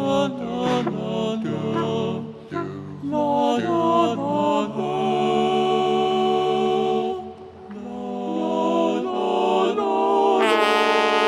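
Film score music with voices singing in harmony, in a chant-like style: short changing notes at first, then a long held chord. The music dips briefly past the middle and swells again near the end.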